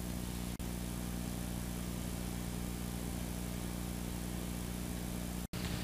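Steady low hum with hiss from an old VHS camcorder recording, unchanging in pitch. The sound dips briefly about half a second in and cuts out completely for an instant near the end, at an edit.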